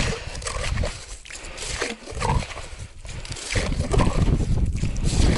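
Crunching and scraping of snow and thin skim ice as a freshly drilled ice-fishing hole, already starting to freeze over, is cleared with a plastic ice skimmer. The crunching is irregular at first and grows louder and denser from about three and a half seconds in.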